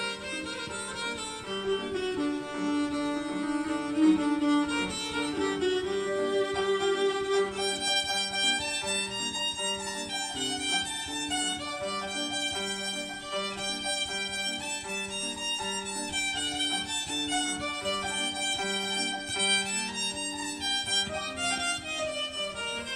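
Electric violin playing the melody of an Adyghe (Circassian) qafe dance tune, over a piano accompaniment of held lower notes.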